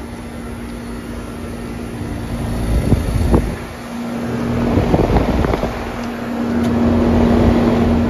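Trane XR13 heat pump outdoor units running: fans and compressors giving a steady hum that grows louder about halfway through as the microphone nears one unit's fan grille. Wind buffets the microphone in a few low gusts.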